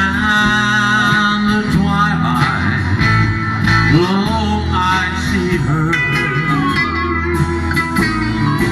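Live country band playing, with electric and acoustic guitars over drums and a voice singing along.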